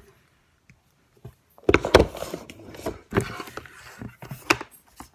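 Objects being handled and knocked against a hard surface: a near-silent start, then from about a second and a half in a run of knocks and rustling with four sharp strikes.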